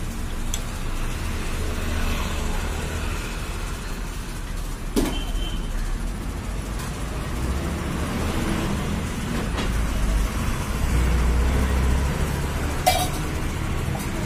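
Steady low rumble with two sharp metallic clinks of steel cooking utensils, one about five seconds in and one near the end.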